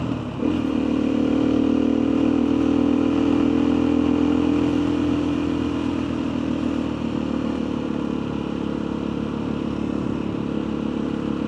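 Motorcycle engine running at a steady cruise. Its pitch rises slightly about half a second in and eases a little lower after about halfway.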